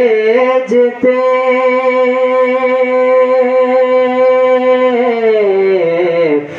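A man singing an Urdu salaam, drawing the word "bhejte" out into one long held note that wavers slightly and slides down in pitch near the end.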